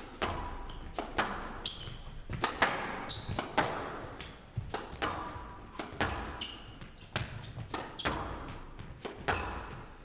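A fast squash rally: the ball cracking off rackets and the walls one or two times a second, with short squeaks of court shoes on the floor between the hits.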